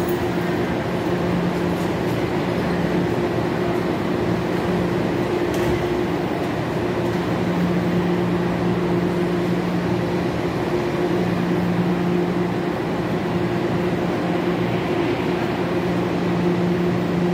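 Hyundai Rotem series 2000 electric multiple unit standing at the platform with its doors open, its onboard equipment humming steadily. A low tone in the hum swells and fades every few seconds.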